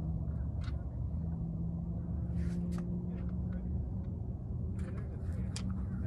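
Steady low engine rumble with a held humming tone, with a few faint short clicks scattered through it.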